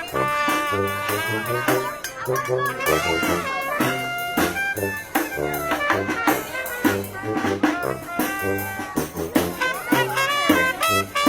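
Live brass band playing an upbeat holiday tune, with horn melody over a steady, bouncing bass line.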